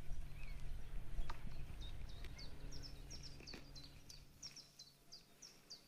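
A small bird singing a long run of short, high chirps, a few each second, with a couple of faint clicks.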